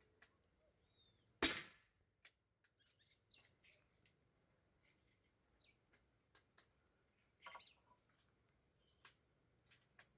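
A single airgun shot about one and a half seconds in, sharp and short with a brief tail. Faint clicks and a few bird chirps follow.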